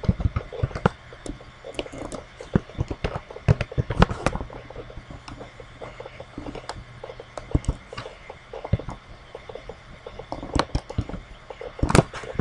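Typing on a computer keyboard: sharp clicking keystrokes in short, irregular runs with pauses between them.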